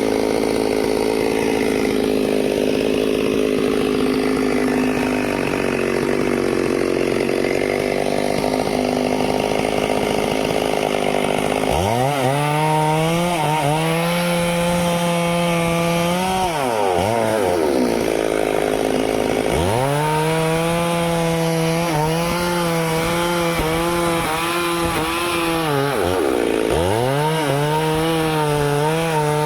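Stihl two-stroke chainsaw running at high revs while cutting wood. From about twelve seconds in, the engine speed drops sharply and climbs back again several times.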